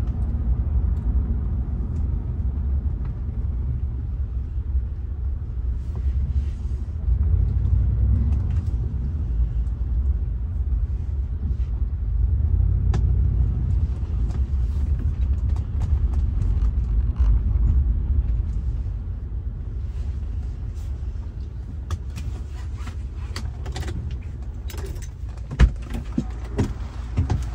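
Low rumble of a Rolls-Royce Silver Spirit's 6.75-litre V8 and tyre noise, heard from inside the cabin as the car drives slowly. The rumble eases in the second half as the car comes to a stop, and a few light clicks and one sharp knock come near the end.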